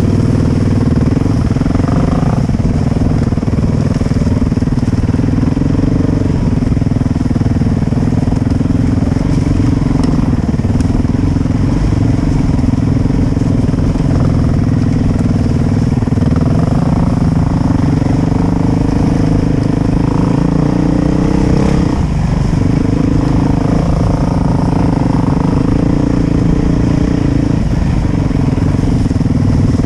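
Dirt bike engine running steadily while trail riding, heard from a helmet-mounted camera. Its pitch rises and falls with the throttle, with short dips about two-thirds of the way through and again near the end.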